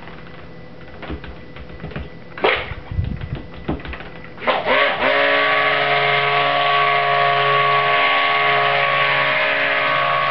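A few light knocks, then a stick blender switches on about four and a half seconds in and runs steadily, mixing colour into cold process soap batter in a plastic tub.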